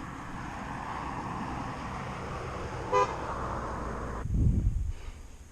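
A vehicle passing, with one short horn beep about three seconds in. A loud low rumble follows about a second later, and then the background noise drops away suddenly.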